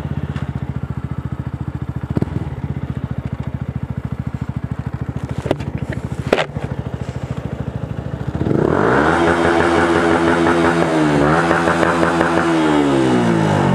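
Yamaha YZF-R125's single-cylinder four-stroke engine, fitted with a Devil aftermarket exhaust, running at low revs with two sharp clicks near the middle. About two-thirds of the way in it revs up hard, holds high revs with one brief dip, and eases off near the end.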